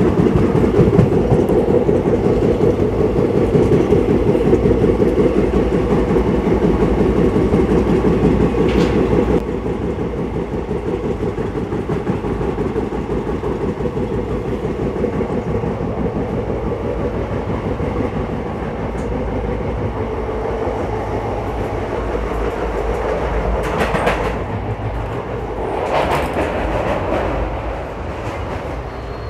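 ICF passenger coach running along the track, heard from on board: a steady rumble of wheels on rail with the clickety-clack of rail joints. The noise drops suddenly about a third of the way in, and two brief louder surges come near the end.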